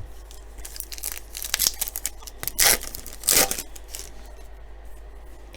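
A baseball card pack wrapper being torn open and crinkled, in a run of short rips. The two loudest rips come about two and a half and three and a half seconds in.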